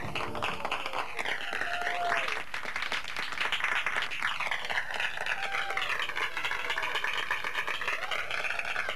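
Audience applause, a crowd of people clapping steadily, with a slow swirling waver in its tone.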